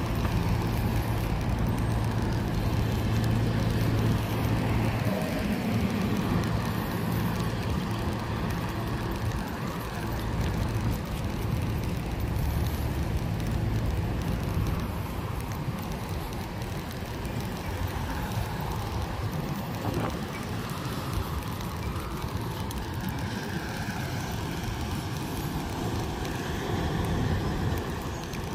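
Street traffic and riding noise heard from a moving bicycle: a steady wash of road noise, with a vehicle's low engine hum standing out for the first five seconds or so.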